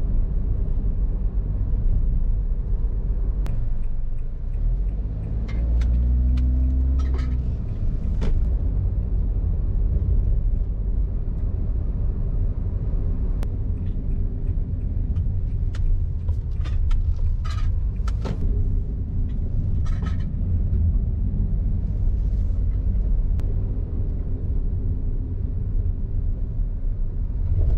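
Cabin noise of a Honda car being driven: a steady low road-and-engine rumble. About five to seven seconds in, the engine's pitch glides, and light clicks and knocks come now and then.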